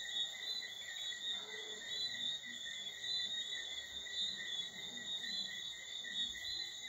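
Steady night chorus of calling animals: a continuous high-pitched trilling in several layers of pitch, with no break.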